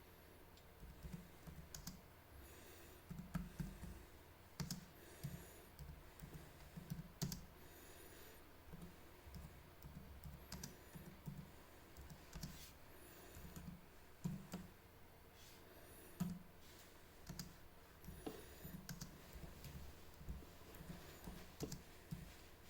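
Typing on the 2020 Acer Predator Helios 300 laptop keyboard: a steady run of irregular keystrokes, some taps louder than others.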